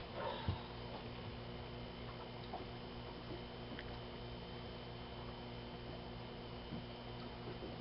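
Steady low machinery hum with several constant tones and faint scattered ticks. About half a second in, a brief soft rustle and thump as an Italian greyhound settles its head down onto a cushion.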